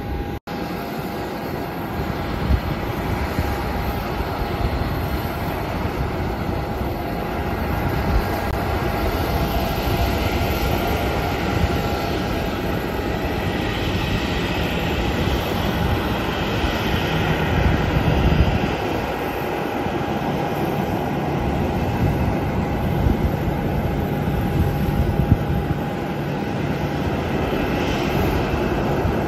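Boeing 737 jet engines on an airport ramp: a steady whine over a rumble of noise, swelling a little through the middle as one aircraft taxis past.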